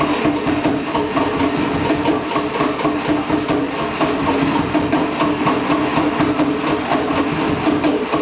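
Fast live Polynesian drumming: rapid, unbroken drum strikes at a steady level.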